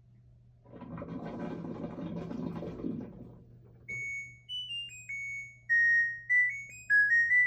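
LG WM3170CW front-load washing machine finishing a one-minute no-spin cycle: a few seconds of noisy mechanical running from the drum, then its electronic end-of-cycle melody, a tune of single beeped notes stepping up and down in pitch, which signals the cycle is done. A faint low hum runs underneath.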